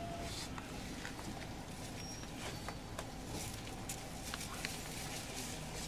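JR 313 series 1100 subseries electric multiple unit running, a steady low rumble from the running gear with scattered irregular clicks and knocks.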